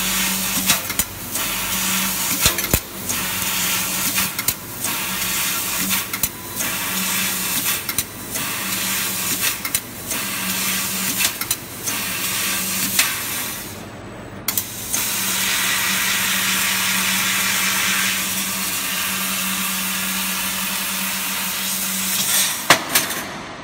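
A 500 W fiber laser cutting machine cutting sheet metal: a loud hiss from the cutting head, broken by short gaps every second or two, over a steady low hum. After a brief pause the hiss runs unbroken for several seconds, then a few clicks come and it stops near the end.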